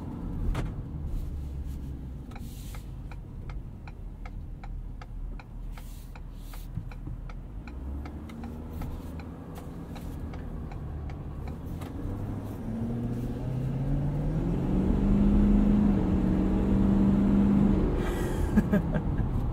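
2017 Ford F-250 Super Duty's 6.7-litre Power Stroke turbo-diesel V8 heard from inside the cab. It runs low under a regular ticking at first, then about two-thirds of the way in the engine note climbs under hard acceleration, holds high and loud, and drops off near the end.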